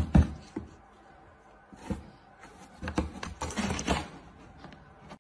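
Knocks and rustles on a cardboard box: two sharp knocks at the start, one about two seconds in, and a cluster around three to four seconds in, as a cat inside paws through the slot at a banknote.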